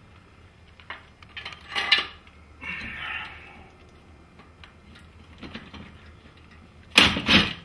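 Steel garage door hinge hardware clinking and clanking as the brackets are handled and set against a wooden door jamb, with a few sharp knocks. A cluster of louder knocks comes near the end.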